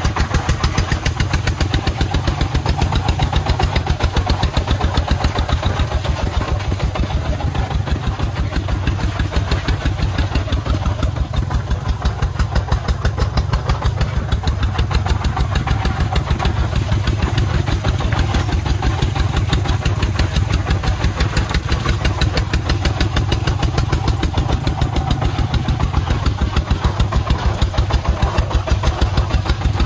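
Single-cylinder 24-horsepower diesel engine of a công nông farm truck running steadily under load as it hauls a full bed of sand, with a fast, even beat.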